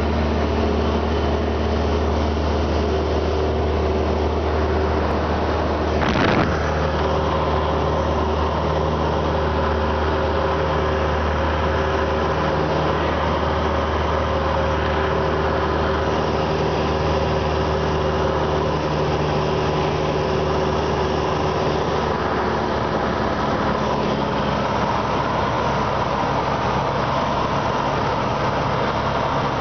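Cessna 172's piston engine and propeller running steadily, heard inside the cabin as a constant drone mixed with rushing air noise. A single brief knock sounds about six seconds in.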